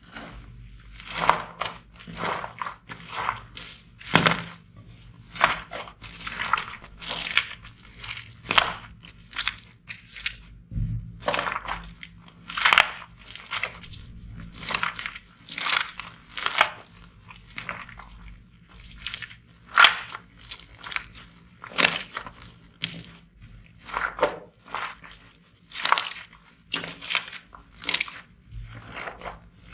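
Slime being squeezed and pressed by hand, giving a steady run of short, sharp crackling sounds, about two a second.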